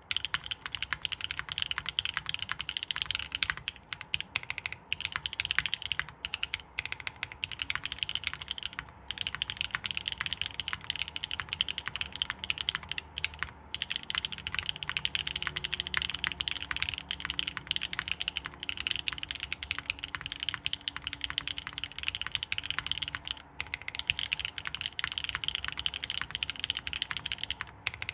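Continuous fast typing on a mechanical keyboard with lubed NK Cream Dream linear switches, aluminium plate and gasket mount, and GMK doubleshot ABS keycaps: a dense run of quick keystroke clicks and clacks, broken by a few brief pauses.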